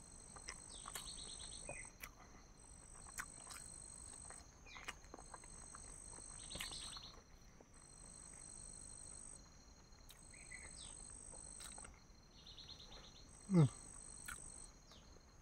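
High insect trill, likely crickets, going in stretches of about two seconds with short gaps between, over faint clicks. A brief louder falling sound comes near the end.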